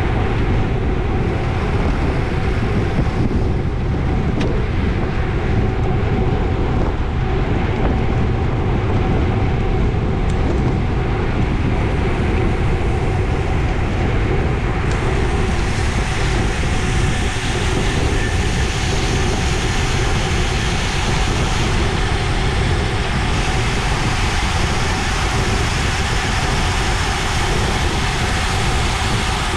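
Steady wind rush and road noise on a camera mounted on a road bike riding at about 24 mph in a race pack. The hiss gets brighter from about halfway through.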